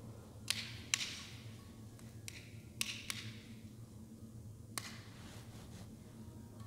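About six sharp clinks and taps of altar vessels, chalice and paten, being handled on the altar, some with a brief ring, over a low steady hum.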